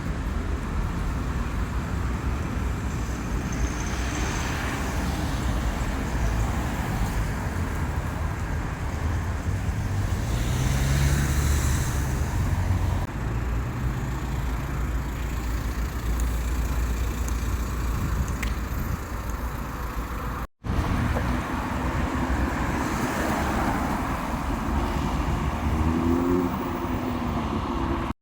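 Road traffic: cars passing along a street, a steady rumble of engines and tyres with a brief dropout about two-thirds of the way through.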